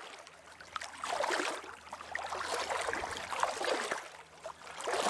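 Water lapping and sloshing in soft swells that rise and fall about every second or two, with a faint steady hum underneath.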